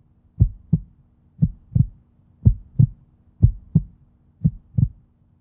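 Heartbeat sound effect: five paired lub-dub thumps, about one pair a second.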